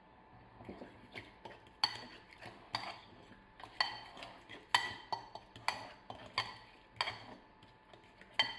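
Metal fork stirring mashed avocado in a clay bowl: soft scraping, then about ten ringing clinks against the bowl's side at uneven intervals, starting about two seconds in.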